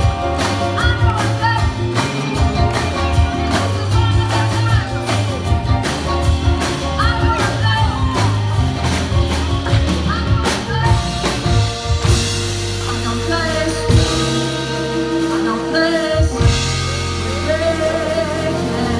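Live pop band with drums, bass and piano playing an upbeat song while a woman sings lead. About twelve seconds in, the steady drum beat drops out and the band holds long sustained chords under her voice.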